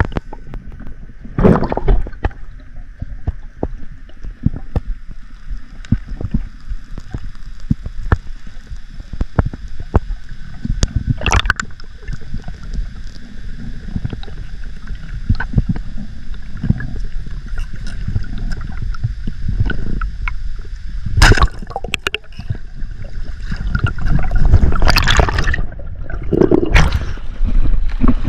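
Seawater gurgling and sloshing around an underwater action camera: a low rumbling wash full of small clicks, with several louder surges, bunched toward the end.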